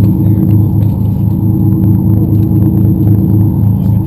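Party boat's engine running steadily: a low hum with a throb that pulses about two to three times a second.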